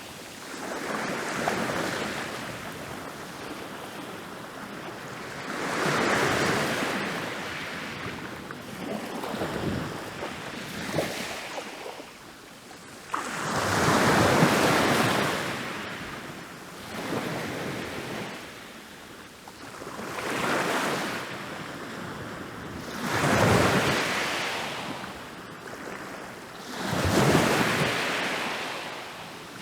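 Ocean waves breaking and rolling onto a beach, surging and fading every few seconds. The biggest wave crashes in suddenly about halfway through.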